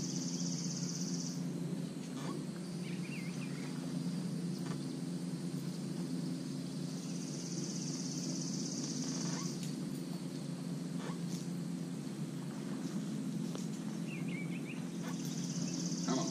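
An insect buzzing in high bursts of about two seconds, repeating roughly every eight seconds, over a steady low hum, with a couple of short bird chirps.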